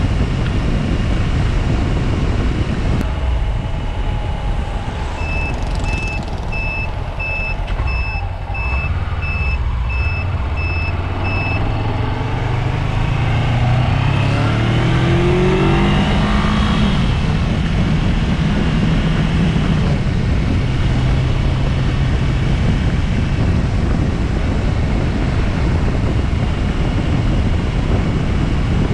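Motor traffic. A vehicle's warning beeper sounds at a steady high pitch, about twice a second for several seconds, then an engine revs up, its pitch rising as a vehicle pulls away, over a constant engine rumble.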